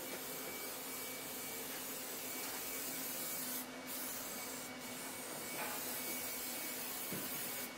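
Steady hiss with a faint, even hum underneath, briefly dipping twice near the middle.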